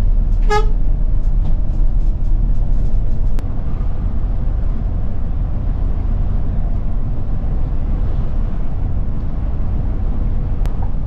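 Steady low drone of road and engine noise inside the front of a Scania K410 double-decker bus cruising on a highway. A short horn beep sounds about half a second in, and the noise drops a little about three seconds in.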